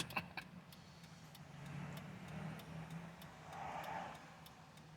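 A car's indicator flasher ticking steadily and faintly in the cabin, over a low steady hum.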